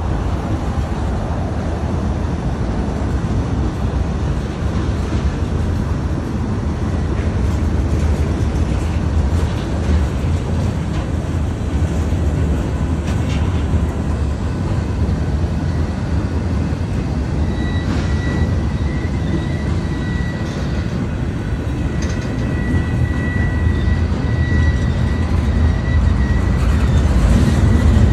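A diesel freight locomotive runs by with a low, steady rumble. About two-thirds of the way through, a thin, steady high squeal from the wheels sets in and grows louder toward the end.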